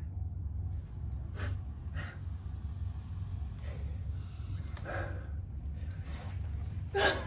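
Two men laughing in short bursts, the loudest near the end, over a steady low hum.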